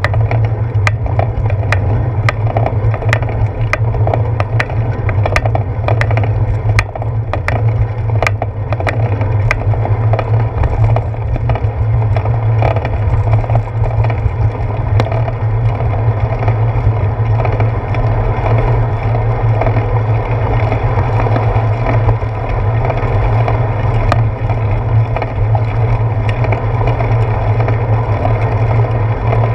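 Bicycle rolling along a wet paved path, picked up by a handlebar-mounted GoPro: a steady low rumble of road vibration and wind. Frequent sharp ticks and rattles come through the first ten seconds or so, then thin out.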